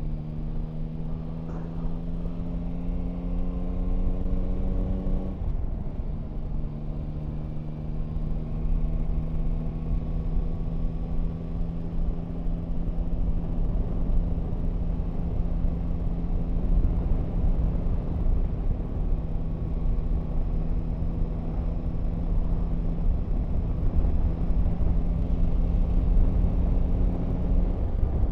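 Yamaha Tracer 9 GT's three-cylinder engine heard from the rider's seat under way, over a low wind rumble. Its note climbs for about five seconds, breaks off briefly as it shifts up a gear, then holds nearly steady at a slightly lower pitch.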